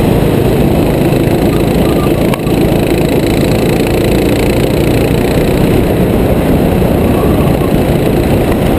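Racing kart's small engine running at speed, heard close up from the driver's helmet camera, with one brief dip about two and a half seconds in.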